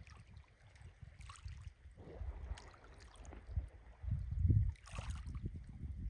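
Wind rumbling in irregular gusts on the microphone, strongest about four and a half seconds in, over soft water lapping and splashing.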